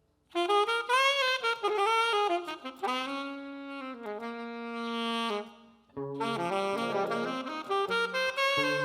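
A single lead instrument playing a solo kompa melody line with sliding notes and a long held note in the middle. It breaks off briefly about six seconds in, then plays a quicker run of notes.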